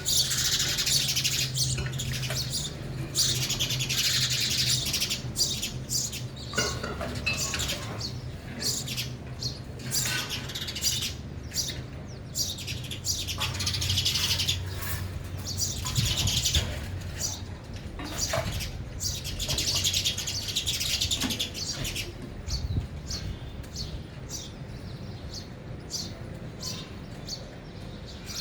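House sparrows chirping busily, many quick chirps coming in bursts with short lulls between them. A low steady hum runs underneath.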